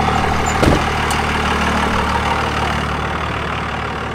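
A Dodge Ram pickup's engine idling steadily, with one thump about two-thirds of a second in as the truck's door shuts. The engine sound fades slowly toward the end.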